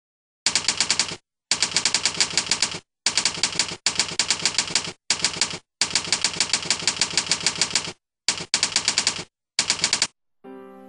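Typewriter sound effect: a rapid, even clatter of keystrokes, about eight a second, in runs of half a second to two seconds with short silent breaks, as text is typed out on screen. Soft music comes in near the end.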